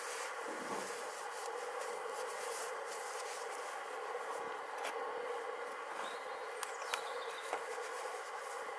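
Steady background hiss, with a few faint clicks about five, six and a half and seven seconds in.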